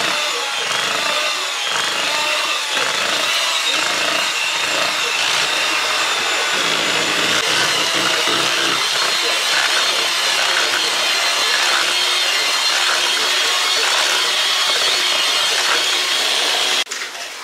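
Handheld electric mixer running steadily with a high motor whine, its beaters churning a thick batter in a stainless steel bowl. It cuts off suddenly near the end.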